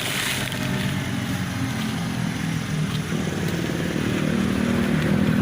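Motorcycle engine running close by, getting louder in the second half as it comes nearer.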